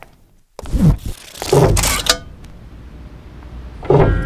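Cinematic sound-design hits: a short click, then after a brief silence a deep boom falling in pitch, a loud noisy burst about a second and a half in that cuts off abruptly, a low rumble underneath, and another boom near the end.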